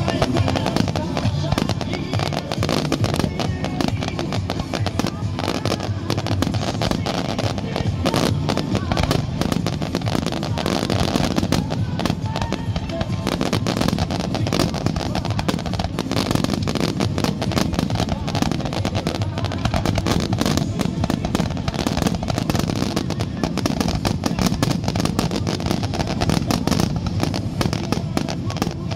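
Fireworks going off in rapid succession, a dense run of bangs and crackles with no gap, over music playing.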